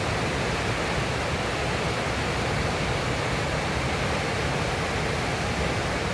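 River whitewater rushing steadily as the current pours over a standing wave.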